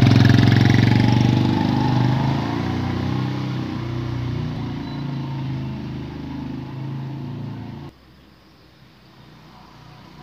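Small motorcycle engine, loud close to the exhaust, pulling away and fading steadily as the bike rides off down the street. The sound drops suddenly to a faint background about eight seconds in.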